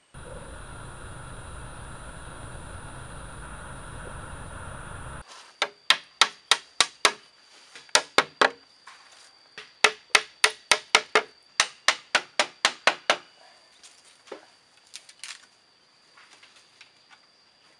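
A few seconds of steady background noise, then a hammer knocking on a bamboo pole joint in quick runs, about three blows a second, followed by a few scattered knocks.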